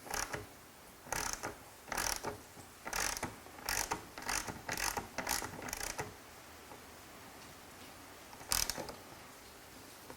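Hand ratchet wrench clicking in a run of short strokes as a seat rail bolt is tightened, then a pause and one last stroke near the end.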